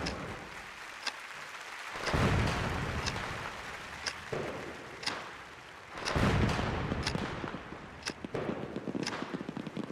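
Fireworks: two deep booms about two and six seconds in, each fading slowly, with sharp crackling pops between them and a quicker run of pops near the end.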